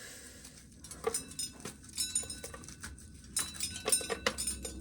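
Dry corn kernels clicking and clinking as ears of corn are shelled: scattered light, irregular clicks with a few brief ringing clinks.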